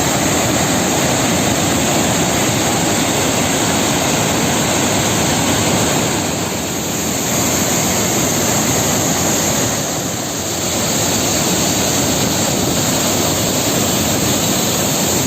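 Water pouring with great force through a dam's opened spillway shutters: a loud, steady rushing that dips slightly twice.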